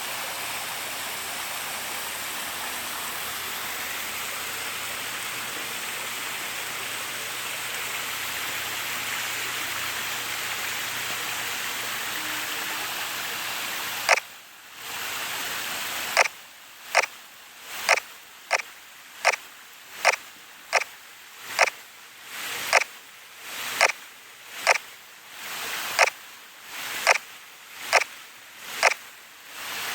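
Waterfall pouring steadily. About halfway through, a camera shutter starts clicking over and over, around one to two clicks a second, as photos are taken, with the water sound dipping briefly after each click.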